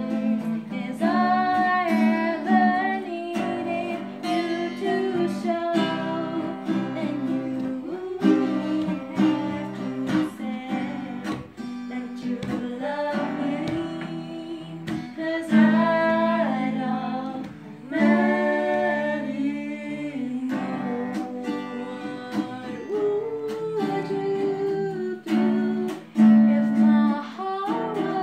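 A young woman singing a ballad, accompanied by two acoustic guitars strummed and picked.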